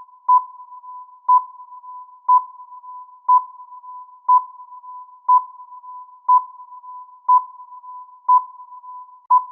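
Electronic countdown-timer beeps, ten short high beeps evenly spaced one a second, over a fainter steady tone at the same pitch.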